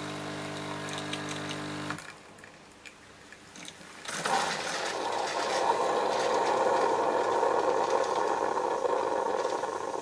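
Bosch Tassimo pod machine brewing tea: its pump hums steadily on one even tone and stops about two seconds in. After a quieter moment, a steady rushing noise begins about four seconds in as the brew is pushed through the T-disc into the glass.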